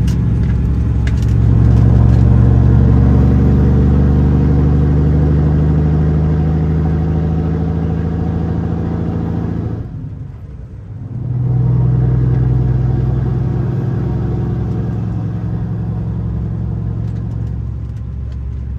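Semi truck's diesel engine under load as the truck accelerates, heard from inside the cab, its pitch slowly rising. About ten seconds in, the engine sound drops away for about a second during a gear change, then comes back at a lower pitch and keeps pulling.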